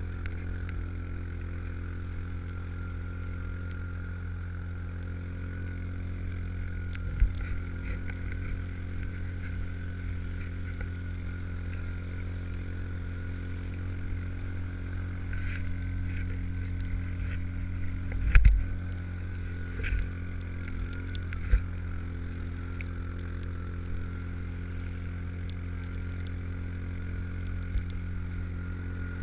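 Yamaha Rhino 700's single-cylinder engine running steadily as the tracked side-by-side drives over snow. A few sharp knocks cut through it, the loudest about two-thirds of the way through.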